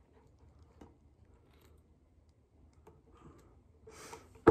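Faint room noise with a few light clicks, then a sharp knock near the end as the camera is set down on a surface.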